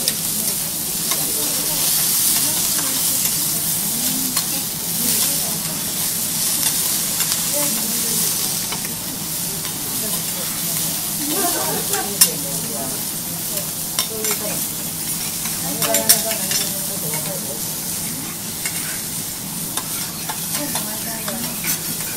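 Wagyu steaks and vegetables sizzling on a hot teppanyaki griddle, a steady frying hiss, with a couple of sharp clicks past the middle.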